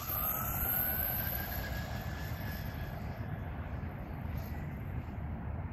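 Brushless electric motor of a Redcat Volcano RC monster truck running on a 4S battery, a thin whine that rises in pitch as the truck picks up speed and fades out about three seconds in, over a steady low rumble.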